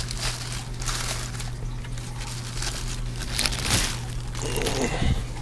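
Irregular rustling and scraping of a styrofoam packing insert and plastic wrap being handled during unpacking, over a steady low hum.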